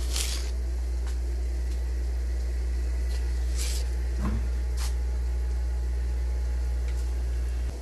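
Steady low hum of aquarium equipment in a room full of tanks, with a few short hisses and a brief squeak around the middle. The hum drops off sharply just before the end.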